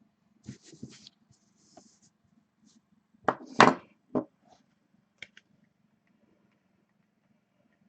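A few scattered knocks and clicks, the loudest a quick cluster a little past three seconds in and another knock just after four seconds, over a faint steady hum.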